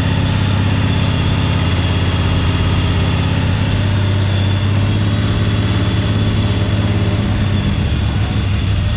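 Kohler V-twin engine of a 1998 Craftsman garden tractor running steadily.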